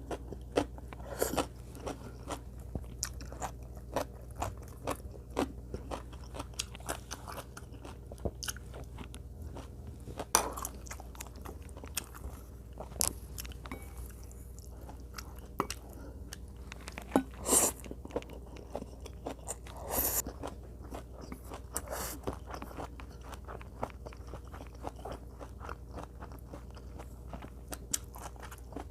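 A person eating close to the microphone: wet chewing and crunching, with many short sharp clicks scattered throughout and a few louder crunches.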